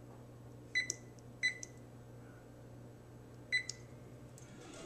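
Electric oven's digital control panel beeping as its keypad buttons are pressed to set the cooking timer: three short, high beeps, two close together near the start and one more toward the end, over a low steady hum.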